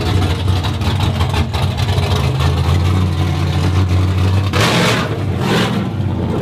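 Chevrolet Silverado single-cab pickup engine running as the truck drives past. It gives a steady low engine note, with two short rushes of noise about four and a half and five and a half seconds in.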